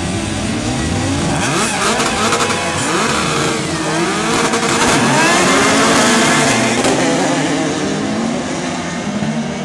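Several autocross buggy engines revving together on the start grid. About halfway through they rise sharply in pitch as the field launches off the line and accelerates away.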